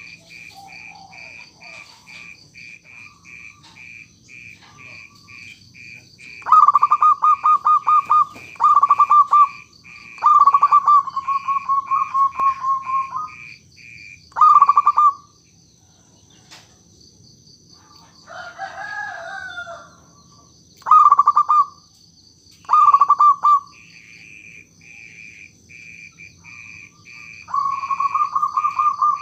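Zebra dove (perkutut) cooing in a series of short, rapidly pulsed phrases, with a longer drawn-out phrase about ten seconds in and another near the end. A steady, evenly pulsed insect chirping runs underneath.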